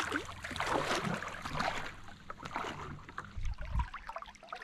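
Water splashing and sloshing as a landed smallmouth bass is handled into a small aluminum boat's live well, over a low steady hum. The hum stops about three seconds in and a low rumble follows.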